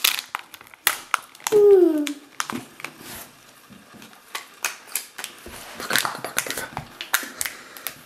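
Foil wrapper crinkling and hard plastic egg capsule clicking and knocking as it is handled. About a second and a half in there is one short whine-like call falling in pitch.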